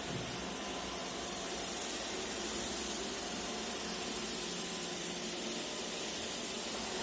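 iRobot Roomba e5 robot vacuum running: a steady hiss from its suction fan and brushes, with a faint steady whine.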